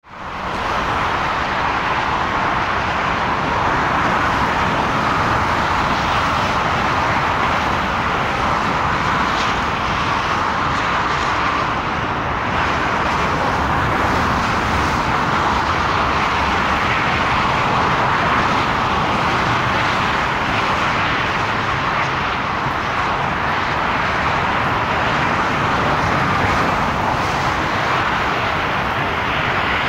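Airbus A380-841's four Rolls-Royce Trent 970 engines on final approach to land, a steady jet noise strongest in the middle range. It fades in within the first second.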